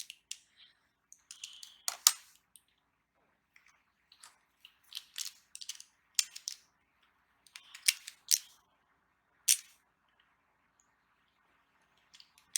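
Plastic Beyblade toy parts and packaging being handled: a scattered series of sharp clicks and light rustling, irregularly spaced, with a pause near the end.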